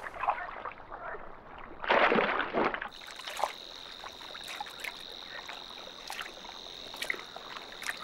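Shallow water sloshing and swirling as a little egret waggles its foot in it, with a louder slosh about two seconds in. From about three seconds on, marsh ambience takes over: a steady high-pitched trill with scattered clicking calls.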